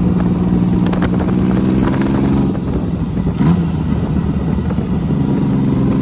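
Yamaha XS850 cafe racer's three-cylinder engine running steadily while the bike cruises past. It eases off slightly about two and a half seconds in, with a brief rise in pitch about a second later.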